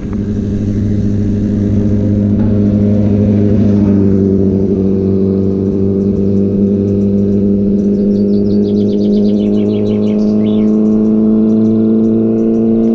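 A car engine running close by, a steady, even hum whose pitch creeps up slightly. A brief high chirping comes in about eight seconds in.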